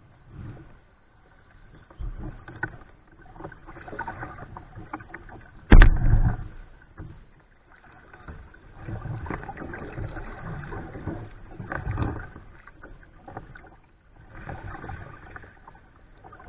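Kayak paddle strokes splashing and dripping in the water, in irregular bursts, with one loud knock about six seconds in.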